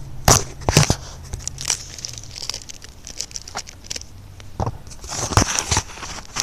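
Close handling noise of adhesive tape and the phone being fixed to the RC truck: irregular crinkling and rustling with sharp clicks and knocks right at the microphone.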